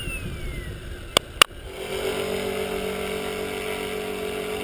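Electric RC model helicopter (Align T-Rex 450) flying: a steady motor and rotor hum sets in just under two seconds in, after two sharp clicks. Before that there is wind-like noise and a falling whine.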